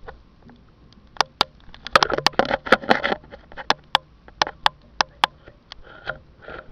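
Handling noise from a camera pushed into a debris-filled hole. Sharp clicks and rustling scrapes come thickest around two to three seconds in.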